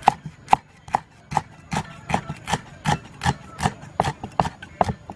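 Cleaver chopping green leaves on a thick round wooden chopping board: steady, evenly spaced knocks, about two or three a second.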